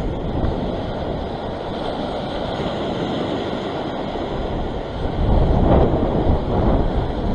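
Strong wind rumbling on the microphone over waves breaking and washing against shoreline rocks, with a louder surge of surf about five seconds in.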